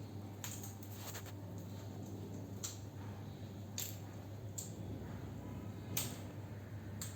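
A few light, sharp clicks and taps at irregular intervals, the loudest about six seconds in, over a low steady hum.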